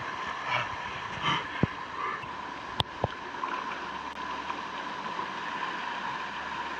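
Shallow mountain stream rushing over rocks and splashing around a person lying back in the current. Two sharp knocks stand out, about one and a half and three seconds in.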